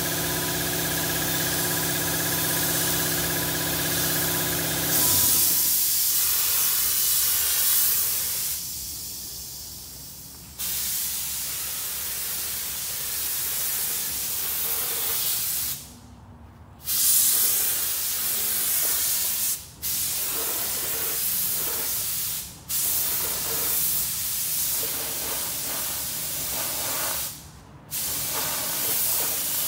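Gravity-feed spray gun hissing as it sprays metallic flake gelcoat, in long passes broken by several short pauses. A steady motor hum runs for about the first five seconds, then stops.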